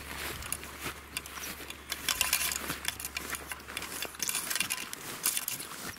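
Footsteps swishing through long meadow grass, with irregular rustles and crackles.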